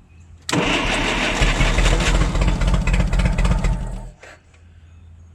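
Forklift engine cranked over on its starter with the spark plugs out for a compression test: a loud, steadily pulsing cranking that starts suddenly about half a second in and stops abruptly after about three and a half seconds. The cylinder under test reaches about 120 psi, which is pretty good.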